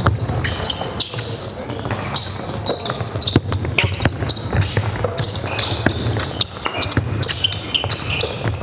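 A basketball bouncing repeatedly on a hardwood gym floor as players dribble and move, with sneakers squeaking and scuffing on the court, all echoing in a large hall.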